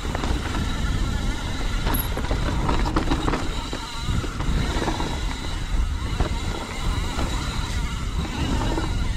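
Mountain bike riding a rough, rocky trail: a steady clattering rattle of tyres, chain and frame over rocks, with wind rumbling on the microphone.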